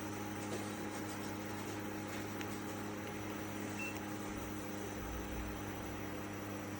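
Small evaporative air cooler's fan motor running with a steady hum and airy whir. A brief high beep sounds about four seconds in.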